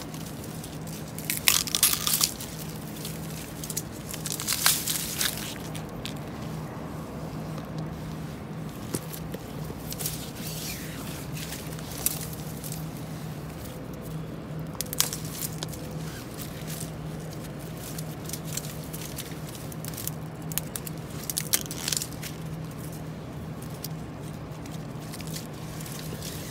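Dry bamboo canes and dry bamboo leaves crackling and crunching in irregular bursts as gloved hands push through a dense bamboo thicket and break off bamboo shoots. The loudest bursts come about two and five seconds in, over a low steady hum.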